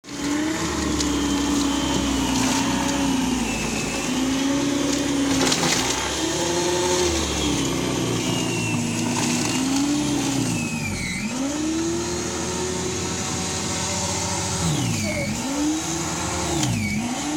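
Corded electric single-stage snow blower running with a steady motor whine whose pitch wavers as it clears snow. The pitch drops sharply three times near the end, the motor bogging as the auger takes in heavier snow.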